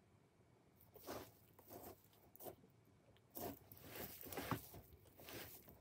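Hands kneading mashed boiled soybeans and brown-rice koji in a stainless-steel pot for miso: faint, irregular squishing and crumbly crunching as the handfuls are squeezed and turned, beginning about a second in.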